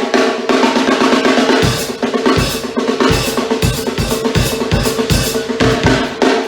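A drum kit being played loud: a fast, continuous snare roll, with a string of bass drum kicks coming in about one and a half seconds in.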